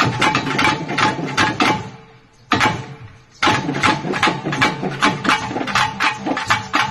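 Folk drum ensemble of barrel drums and a frame drum beaten with a stick, playing fast strokes. It breaks off briefly about two seconds in and again around three seconds, then picks up a quick, even rhythm.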